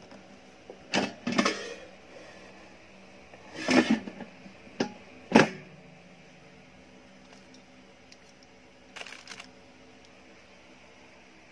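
Handling noises from a plastic air fryer and bagged utensils: a few short plastic knocks and rustles, loudest about four and five and a half seconds in, then a brief rustle near the end.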